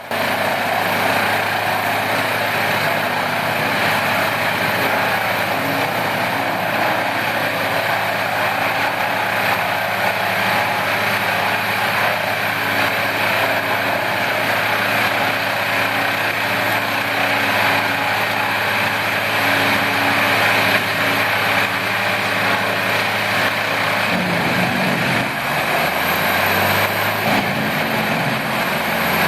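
Morbark 30/36 whole-tree chipper running, with a steady engine drone under the noise of wood being chipped. The engine pitch wavers about three-quarters of the way through.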